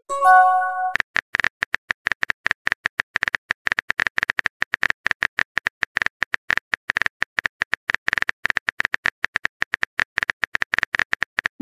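Texting-app sound effects: a short chime of a few notes as a message is sent, then rapid, irregular phone-keyboard tap clicks as the next message is typed out, with a quick rising swoop at the very end as it is sent.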